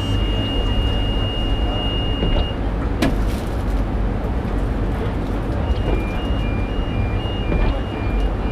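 Penang Hill funicular railcar running on its track with a steady low rumble. A high, steady electronic tone sounds for the first two or so seconds, a sharp clunk comes about three seconds in, and from about six seconds an intermittent two-tone electronic beeping starts.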